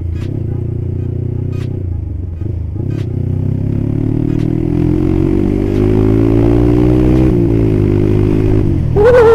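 Yamaha Scorpio 225 single-cylinder four-stroke engine running through a cheap aftermarket Purbalingga-made exhaust, heard from the saddle while riding. The revs climb through the gears, and the pitch drops at a gear change about two seconds in and again about seven seconds in. A brief, loud higher-pitched sound cuts in near the end.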